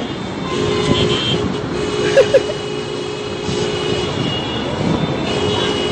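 Street traffic noise from cars held in a jam, a steady mix of engine and road sound with some held tones. Two brief sharp sounds stand out about two seconds in.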